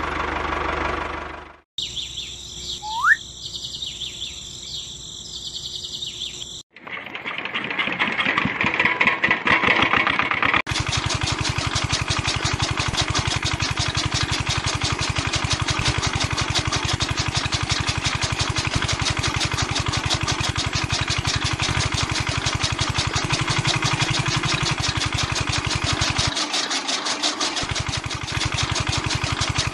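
Miniature single-cylinder diesel-style engine starting up about seven seconds in and settling into a steady rapid running beat, driving a belt-driven miniature chaff cutter that chops grass. Before it, a few seconds of outdoor ambience with a single bird chirp.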